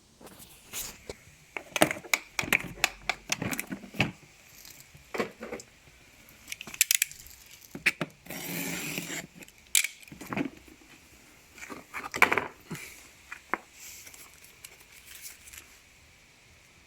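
Packaging handled by hand: irregular crinkles, rustles and sharp knocks, with a rasping tear lasting about a second around the middle.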